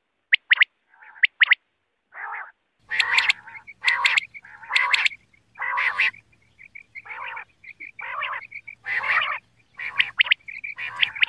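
Common quail calling: a few short, sharp paired whistled notes at first, then from about three seconds in a rapid run of harsher, croaking calls over a faint low hum.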